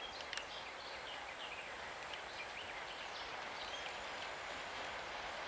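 Small birds chirping in many short high calls, over a faint, steady rumble of a distant electric locomotive and freight train that slowly grows louder as it approaches.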